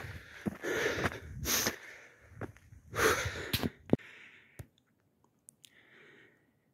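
A hiker's heavy breathing close to the microphone: a few loud breaths in the first four seconds, then only faint breaths.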